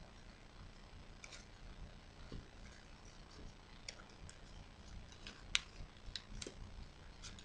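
Origami paper crackling and crinkling as it is creased and folded by hand: faint scattered clicks, the sharpest about five and a half seconds in.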